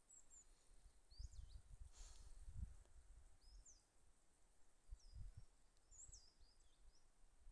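Faint small-bird chirps: short high notes that sweep up and down, repeated every second or so, over an occasional low rumble on the microphone.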